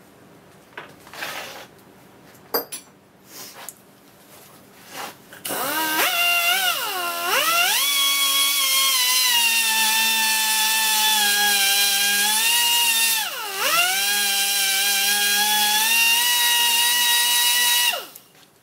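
Pneumatic die grinder starting up with a high whine, wavering in pitch as it comes up to speed, then running steadily for about ten seconds with one sharp dip in pitch partway through, before cutting off. It is grinding away the peened-over end of the square shaft to free the worn die-cast crossfeed gear. A few light handling clicks come before it starts.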